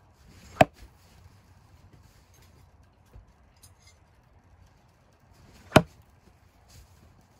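Two throwing knives thrown one after another, each striking and sticking in the end of a wooden log with a sharp knock. The knocks come about five seconds apart, each after a brief faint whoosh.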